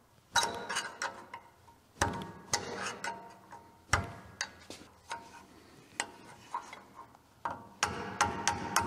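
Hand tools clinking and knocking on the metal of a truck's rear parking brake and hub assembly: irregular sharp metallic clicks, some with a short ring, with a quicker run of clicks near the end.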